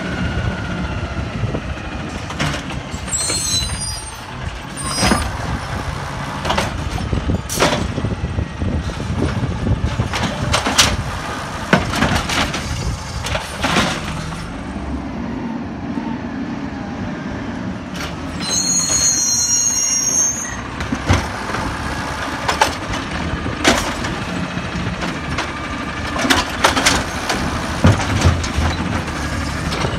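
Peterbilt 320 automated side-loader garbage truck, its compressed-natural-gas engine running, with repeated sharp clanks and knocks from the lift arm and carts. Two short air-brake hisses, about three seconds in and again about nineteen seconds in.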